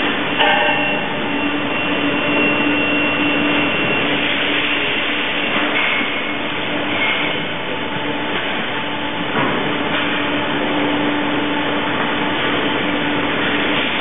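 Steady mechanical rumble with a low hum from a GEA WestfaliaSurge AutoRotor rotary milking parlour and its equipment running, with a couple of short high squeaks about six and seven seconds in and a knock a little after nine seconds.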